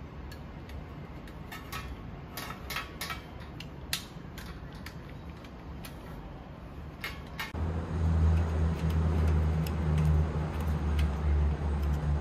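Light clicks and knocks of metal stand parts and plastic caster wheels being handled and fitted together. About seven and a half seconds in, a steady low hum with a noisy hiss starts abruptly and becomes louder than the clicks.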